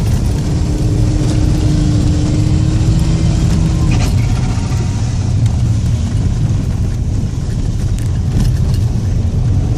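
Audi A6 2.5 TDI quattro's V6 turbodiesel running while the car is driven, a steady low drone. A held steady tone sits over it for the first few seconds, and light clicks and rattles are scattered through.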